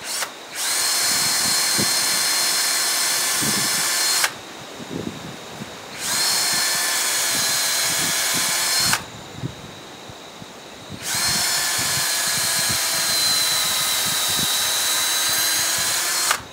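Cordless drill with a 1/8-inch bit boring into a log, run three times for a few seconds each with short pauses between, a steady whine each time.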